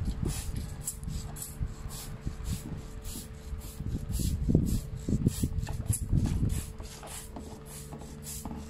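Hand trigger spray bottle squirting cleaner onto a car's underbody in quick repeated pumps, about three hisses a second, with rustling handling noise and a faint steady hum underneath.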